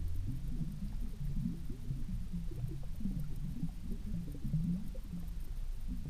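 Underwater ambient sound picked up by a camera on the bottom: low, irregular rumbling and short low tones over a steady deep hum.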